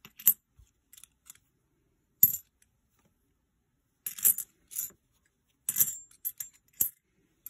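Clad Kennedy half dollars clinking as they are taken one at a time off a stack and set down onto a pile of other halves: separate short metallic clinks with a bright ring, one or two early, then a quicker run of them from about four seconds to seven seconds in.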